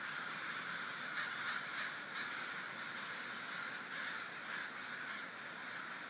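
A large flock of American crows cawing as it flies over on its evening commute to roost, many caws overlapping into a continuous din, with a few sharper calls standing out in the first half.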